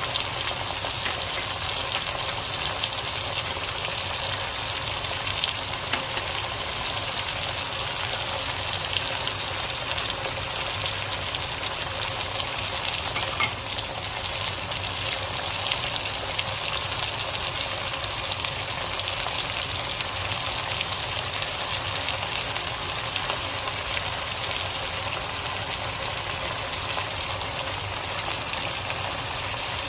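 Food sizzling steadily as it fries in hot oil in a cooking pot, with one short click about halfway through.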